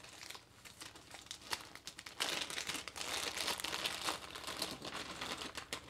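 Small clear plastic zip-lock bag crinkling as it is handled and pulled open by hand, with scattered light crackles at first and a denser run of crinkling from about two seconds in.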